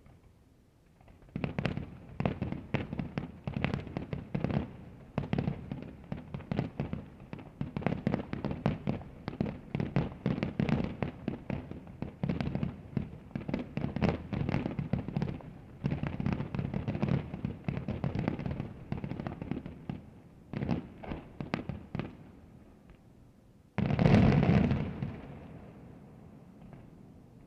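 Fireworks display: after a quiet second, a fast, dense run of crackling bangs from many shells bursting for about twenty seconds, then one loud boom near the end that fades away over a couple of seconds.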